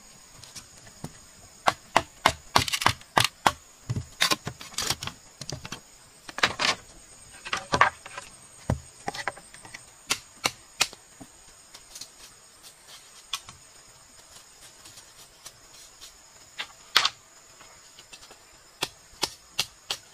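A knife cutting and splitting bamboo by hand: irregular sharp cracks and knocks, most of them in the first half, with another near the end. A steady high buzz of insects runs underneath.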